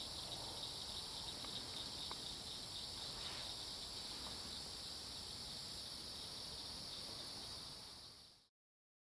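Steady high-pitched insect chorus with a fine pulsing texture, fading out near the end.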